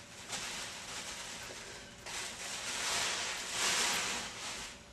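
Rustling and crinkling of packaging being handled, growing louder about two seconds in and dying away near the end.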